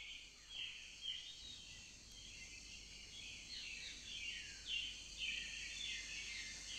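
Faint birdsong: many short chirps, each sliding downward in pitch, over a steady high hiss.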